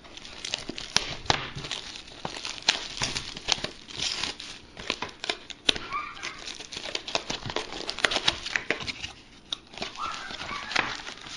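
Packaging of a retail box of trading-card packs being torn open, with a continuous run of crinkling and scratchy crackles and rustles.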